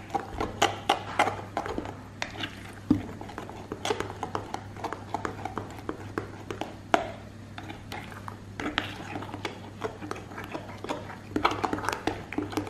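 A spoon stirring thick potato batter in a glass bowl, with irregular clicks and taps of the spoon against the glass. The batter is being mixed hard to beat out lumps.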